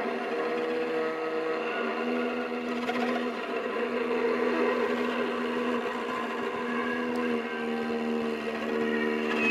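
Violas bowed with extended techniques in an experimental improvisation: a low held tone rich in overtones that stops and restarts several times, with a rougher, noisier scraping stretch around the middle.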